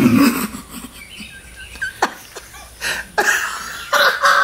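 A man laughing in short bursts, with a couple of sharp clicks in between.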